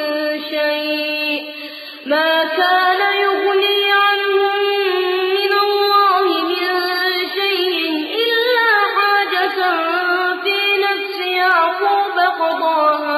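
A man reciting the Quran in melodic chanted tajweed, holding long drawn-out notes, with a short break for breath about two seconds in.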